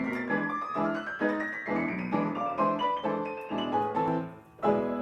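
Pneumatic player piano (pianola) playing from its perforated roll: struck chords with a rising run of notes, a short break about four and a half seconds in, then a loud chord. The piano is worked by foot-pedalled bellows and valves that press the keys by vacuum.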